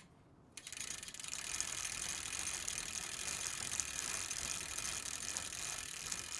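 Rapid ratchet clicking of a bicycle freehub as the rear wheel spins freely, starting about half a second in.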